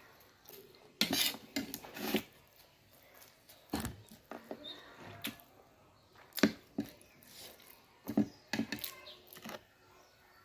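Metal fork and spoon clinking and scraping against a ceramic bowl of noodles in a series of short sharp clicks, with a cluster of them between one and two seconds in, mixed with close-up mouth sounds of slurping and eating noodles.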